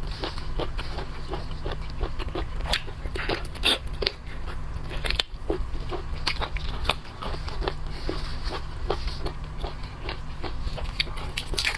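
Close-miked chewing of boiled seafood: a steady rhythm of short, wet clicks about three to four a second, with a few louder crunching bites about three to four seconds in.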